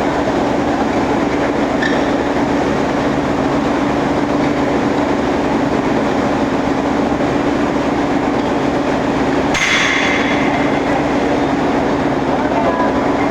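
Steady, loud din of forging-line machinery with a constant low hum, and a single metallic clang with a brief ring about ten seconds in.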